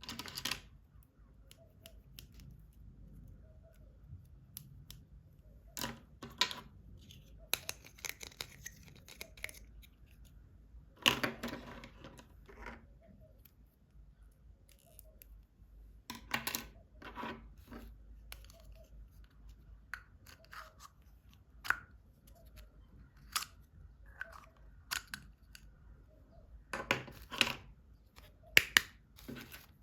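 Toy packaging and plastic toy parts being handled and unboxed: separate bursts of crinkling, rustling and clicking with short quiet gaps between them.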